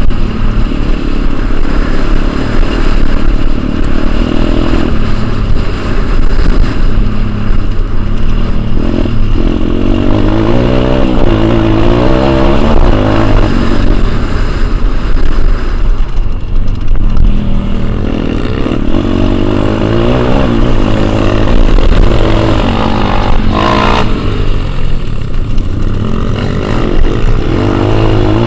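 Pit bike's small single-cylinder engine heard close up on board, revving up and dropping back again and again as it accelerates out of bends and shifts gears.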